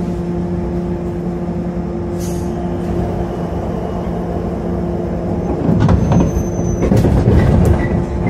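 Inside a JR 103-series electric train car standing at the platform: a steady hum from the onboard equipment, a short hiss of air about two seconds in, then from about six seconds in a louder clatter of knocks and air as the doors close for departure.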